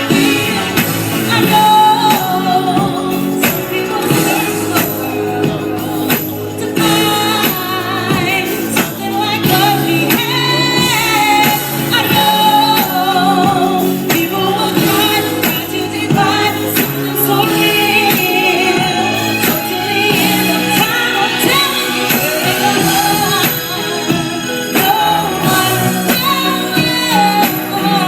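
Live band music with a lead singer, carried by a steady drum beat.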